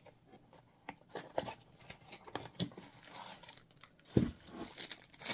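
Packaging being handled: a small cardboard box opened and a part in a plastic wrapper pulled out, with scattered rustles and clicks and one louder thump about four seconds in.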